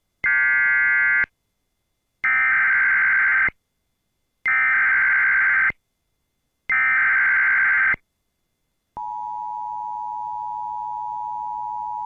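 Emergency Alert System broadcast alert: four bursts of buzzing digital data tones, the SAME header, each about a second long with silent gaps. About nine seconds in, a steady two-tone EAS attention signal begins. Together they announce the start of a flash flood warning message.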